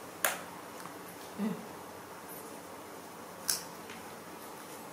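Two sharp clicks about three seconds apart, with a short low grunt between them, as monkeys handle and eat grapes and banana from plates.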